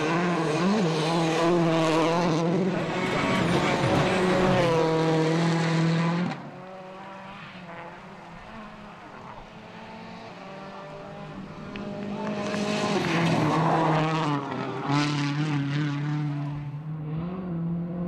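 World Rally Car engine running hard at high revs, its pitch wavering and climbing. The sound drops away suddenly about six seconds in, stays quieter for several seconds, then builds back up to full volume from about twelve seconds.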